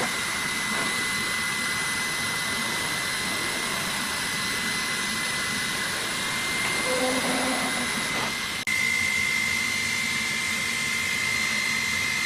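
Laser cutting machine running: a steady hiss with a high whine. The sound changes and dips briefly a little past the middle, then carries on.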